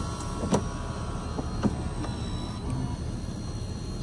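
An engine running steadily with a low rumble, with a few sharp knocks, the loudest about half a second and a second and a half in.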